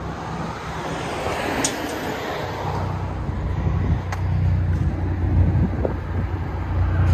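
2015 Ford Focus ST's turbocharged 2.0-litre four-cylinder idling through a Carven TR-series muffler and twin tips: a steady, low, even exhaust drone.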